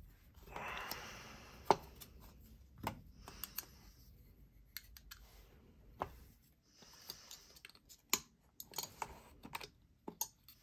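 Scattered small clicks and taps of a folding knife and small tools being handled while the knife is taken apart, with two short scraping rustles among them.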